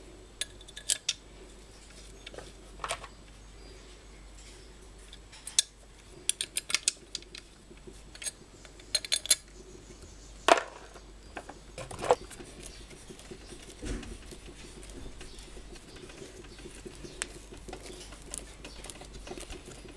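Irregular small metallic clicks and ticks of screws and a screwdriver as the cover screws are fitted and tightened on a water pump's housing. Some come in quick clusters of ticks, and a few single clicks stand out louder.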